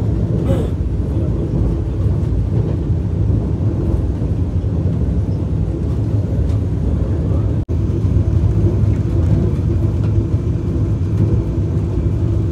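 Vande Bharat Express electric train running along the track: a steady, low rumble that drops out sharply for an instant once, a little past halfway.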